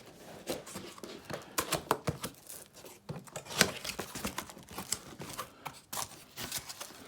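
Packaging being handled and opened by hand: irregular rustling, crinkling and tearing with sharp little clicks and scrapes.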